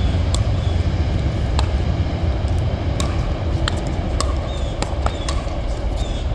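A pickleball rally: paddles striking the plastic ball, and the ball bouncing on the hard court, as a string of sharp pops at irregular spacing, about eight in all. A steady low rumble runs underneath.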